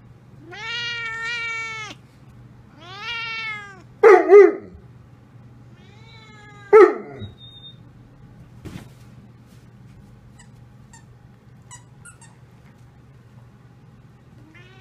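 A cat meowing in two long drawn-out calls, then a Greater Swiss Mountain Dog giving three short loud barks, two close together about four seconds in and one near seven seconds; a few faint clicks follow.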